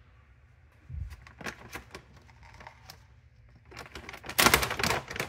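Crinkling and crackling of a bag of toppings being handled and opened, loudest near the end, after a soft thump and a few light clicks about a second in.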